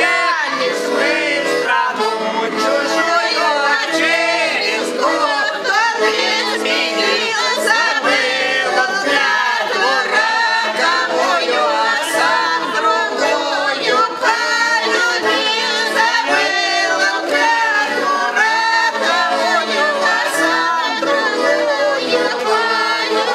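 Garmon (Russian button accordion) playing a folk song while a group of men and women sing along together.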